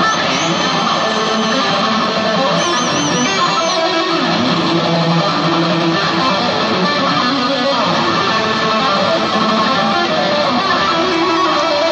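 Electric guitar played live and loud through concert amplification, a continuous run of sustained, overdriven notes.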